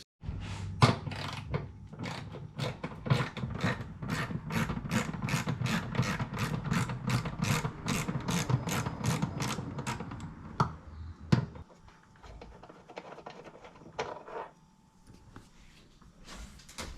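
Hand ratchet wrench clicking at a steady rate of about three to four clicks a second over a low hum. After about ten seconds it stops, leaving a few scattered clicks and knocks.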